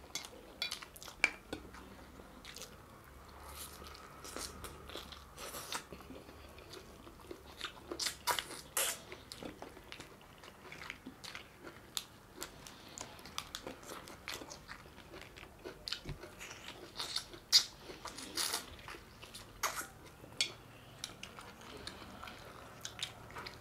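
Close-up eating sounds of people chewing and biting into mutton curry and rice: irregular wet smacks, bites and small crunches, a few louder about eight to nine seconds in and near eighteen seconds.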